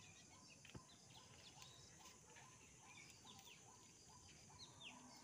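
Near silence with faint, repeated short bird chirps, several quick high notes each second.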